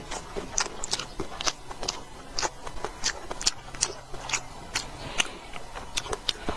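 Close-up eating sounds: chewing and mouth smacks with irregular sharp clicks, two or three a second.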